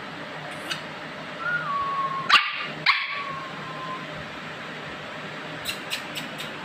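Small Lhasa apso dog whining in a high drawn-out tone, broken in the middle by two sharp yips about half a second apart. A few faint clicks come near the end.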